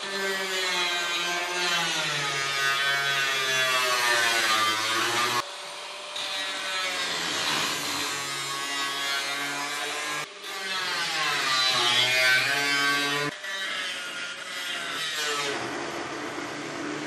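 Angle grinder cutting the steel of an old fertiliser spreader's hopper, throwing sparks. The motor's whine sags and climbs again as the disc bites, and the sound breaks off and restarts abruptly a few times.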